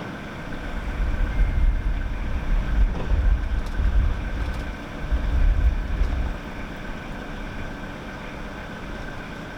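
A narrowboat's engine running steadily at idle. Wind buffets the microphone from about half a second in until about six seconds in.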